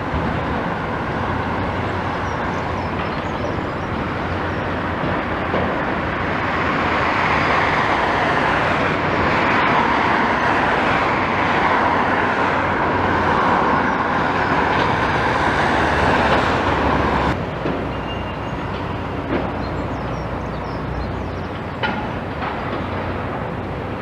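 Steady mechanical rumble with a low hum, growing louder for several seconds, then dropping suddenly about seventeen seconds in, with a few short knocks.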